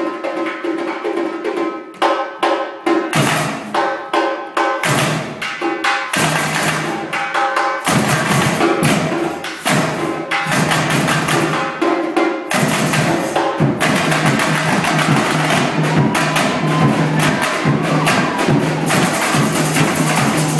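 Samba percussion band playing hand percussion in a driving samba rhythm. The groove starts with short breaks where the playing stops, then settles into a steady, fuller groove about eight seconds in.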